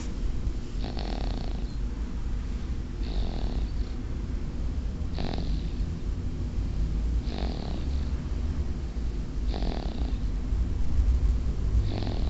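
Snoring, a young sleeper's breaths: six soft rasping breaths, one about every two seconds, over a steady low rumble.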